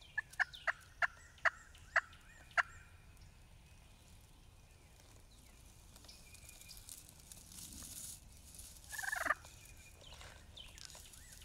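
Wild turkeys calling close by: a run of about seven sharp call notes that slow down over the first few seconds, then a short gobble about nine seconds in.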